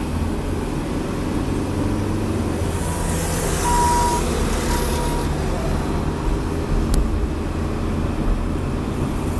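Steady engine and road noise heard from inside a moving car, with a truck passing close alongside about three to four seconds in. A short high beep sounds about four seconds in, and there is a sharp click near seven seconds.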